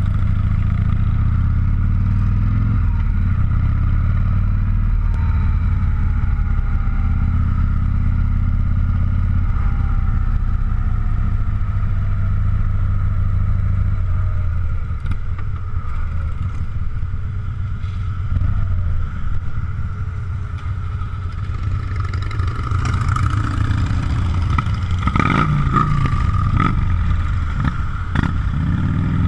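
Motorcycle engine running at low road speed, heard from a camera mounted on the bike, with wind rumble on the microphone. The engine eases off about halfway through, then picks up again with more wind noise in the last several seconds.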